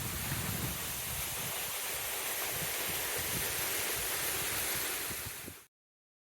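Creek water rushing steadily. It cuts off abruptly about five and a half seconds in, leaving dead silence.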